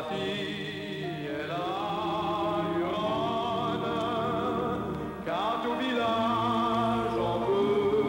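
Background vocal music: voices singing long held notes with vibrato, with several pitches sounding together in a choir-like texture.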